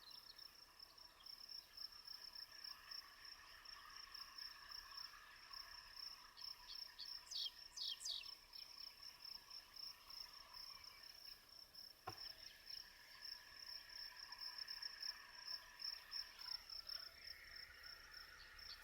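Faint, steady high-pitched insect trilling with a fine pulsing chirp that never lets up. A few quick bird chirps come about seven to eight seconds in, and a single sharp click about twelve seconds in.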